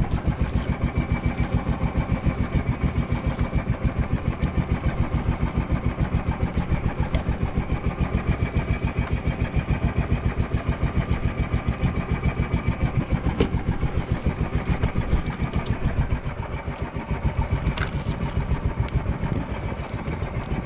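Small outrigger fishing boat's engine idling, a steady rapid chugging beat throughout.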